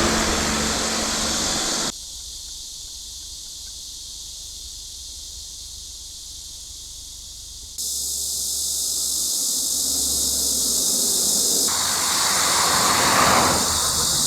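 Cicadas shrilling in a dense, steady high-pitched chorus. It drops away sharply about two seconds in and returns loud near eight seconds, with some lower rushing noise underneath toward the end.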